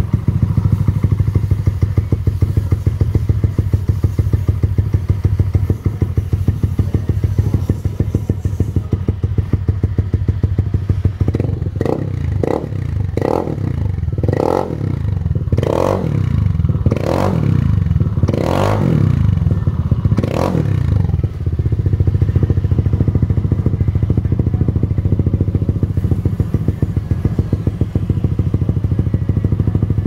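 Motorcycle engine idling through a dual-tip stainless aftermarket exhaust (a Razer copy) with an even, steady pulse. From about a third of the way in comes a run of about eight quick throttle blips, each revving up and dropping back, before it settles to idle again.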